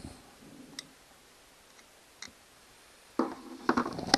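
Two faint single clicks, then about three seconds in, a loud run of knocks and scraping as the separated outboard powerhead block is handled on the workbench.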